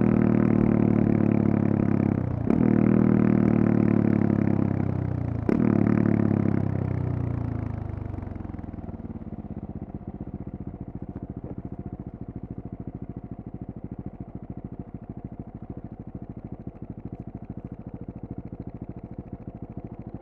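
Single-cylinder engine of a 2018 KTM 690 Duke with a Leovince decat pipe and slip-on silencer, pulling under throttle with two brief breaks at gear changes. About six seconds in it drops off over a few seconds and settles into a steady idle.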